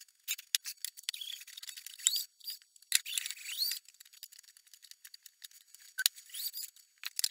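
Screwdriver taking screws out of a VCR's sheet-metal shield plate: small metallic clicks and rattles in short spells of about a second each.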